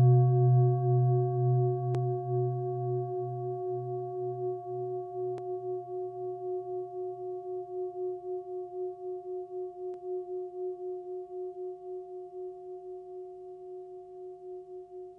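A deep bell-like struck metal instrument ringing on after a single strike. Its low note throbs slowly, and the whole tone fades away gradually.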